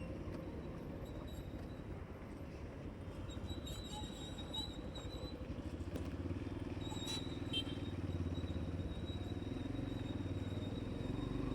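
Motorcycle engine running steadily while riding, with road and wind noise. A faint high thin tone comes and goes over it.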